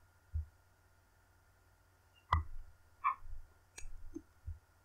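Computer mouse clicking a few times, in scattered single clicks.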